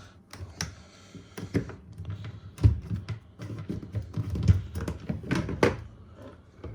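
Handling noises from a tumble dryer's lower access panel being opened: a run of clicks and taps with a few dull thuds.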